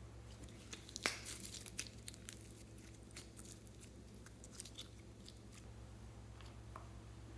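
Slime being kneaded and stretched by hand, giving a scatter of soft clicks and crackles, thickest from about a second in and again near the middle.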